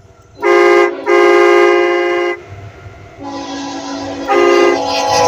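A multi-chime train air horn sounds a series of blasts as one steady chord: a short blast, a long one, a quieter held stretch, then a short loud blast and another long one that starts near the end.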